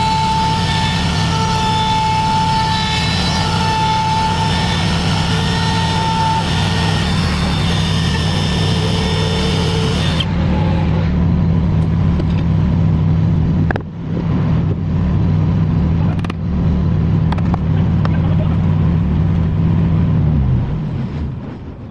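A motor or engine running steadily with a low hum, then winding down and stopping near the end.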